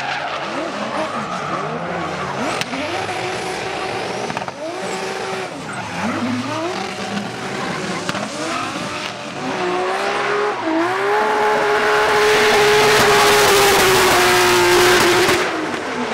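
Drift car's engine revving up and down under throttle, with tyres squealing as it slides. About ten seconds in, the engine climbs and holds high revs with loud tyre noise, the loudest part, then the revs drop away near the end.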